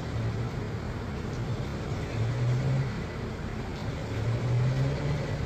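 Distant airliner jet engines running at taxi power: a steady noise with low rumbling swells, about two seconds in and again later on.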